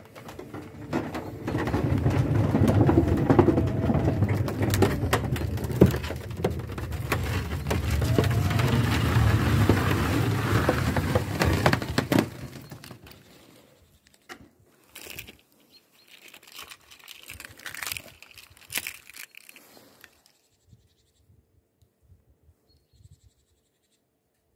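Permobil F5 power wheelchair driving over wooden deck boards: a steady low rumble from its drive and wheels, with many clicks and knocks. The rumble stops about halfway through, leaving scattered faint knocks and then near silence.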